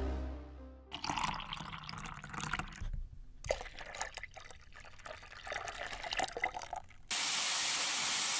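Milk pouring from a plastic packet into a steel saucepan, an irregular splashing trickle with a short break partway through. About seven seconds in, a steady hiss takes over.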